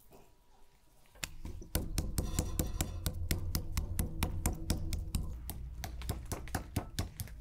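Metal meat-tenderizing mallet pounding raw beef steak on a wooden chopping block. Repeated blows at about four a second, starting about a second and a half in.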